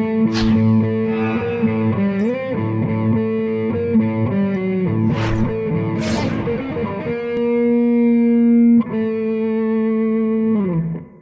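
Intro music on a distorted electric guitar: long held notes, with a bend upward about two seconds in and a slide down as the music stops near the end. A few short sweeping noises cut across it.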